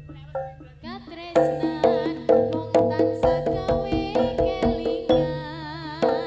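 Live Javanese barongan ensemble music: tuned gong strikes about three a second over a drum beat, with a wavering high melody line above. It picks up fully about a second in after a brief lull.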